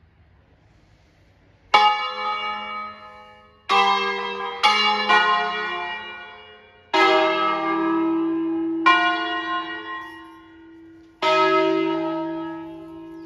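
Five church bells tuned in E-flat (Crespi bells of 1853) playing a short solemn peal. About seven single strokes of different bells come at uneven intervals, starting about two seconds in. Each stroke rings on and fades before the next.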